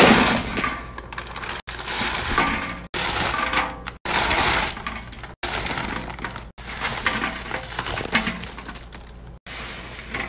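Pile of sour gummy rings and sour belt strips pouring from a bag into a bin and being tossed by gloved hands: a dense pattering rustle. It comes in several short stretches that each start loud and break off abruptly.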